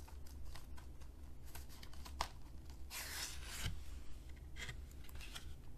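A cardboard slipcover sliding off a plastic 4K Blu-ray case, with small clicks and rubbing as the case is handled. A longer scraping slide comes about three seconds in.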